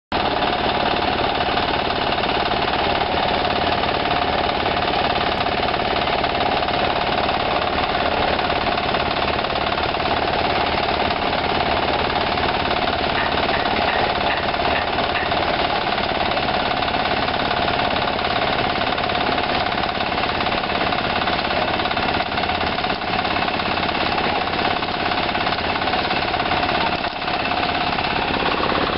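Concrete-pouring machinery running continuously with a loud, steady, rapid mechanical rattle.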